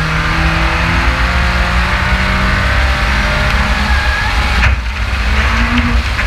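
Race car engine at speed, heard onboard over heavy wind and road noise, with a brief drop in level about three-quarters of the way through.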